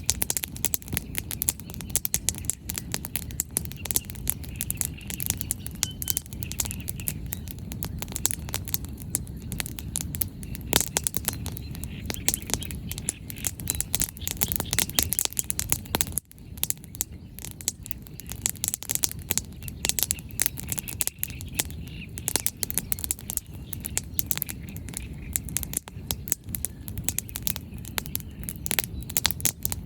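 Firewood burning in an open bonfire, crackling with frequent sharp pops over a low steady rush. Faint bird chirps come through in the background.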